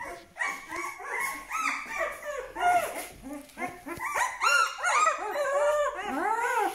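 Aksaray Malaklı puppies, about 12 days old, whining and crying: a rapid string of short squeals, each rising then falling in pitch.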